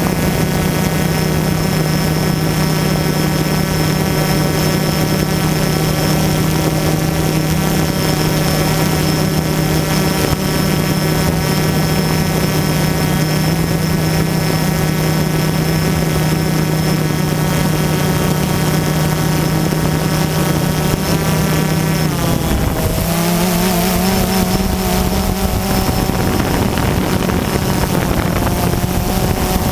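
DJI Phantom quadcopter's electric motors and propellers, recorded by the GoPro mounted on the drone itself, giving a loud, steady multi-tone whine. About two-thirds of the way through, the pitch dips and jumps to new, wavering tones as the motors change speed while the drone manoeuvres.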